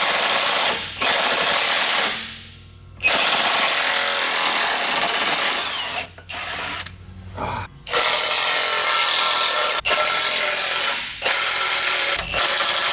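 Cordless impact wrench hammering bolts loose, in repeated bursts of one to three seconds with short pauses between.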